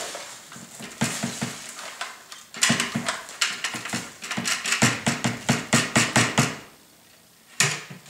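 Dyson DC28 clear bin being emptied: dirt and pet hair drop out of its opened base into a plastic-lined trash can, with rustling and a long run of rapid plastic knocks and rattles as the bin is shaken and knocked to loosen the debris. A single sharp click comes near the end.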